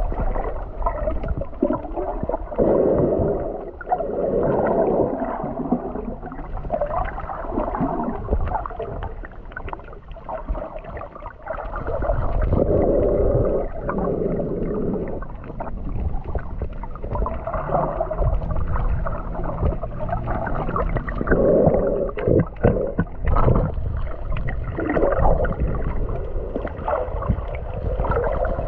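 Muffled water sloshing and gurgling, heard from underwater while snorkeling, with a low rumble and occasional knocks that swell and fade irregularly.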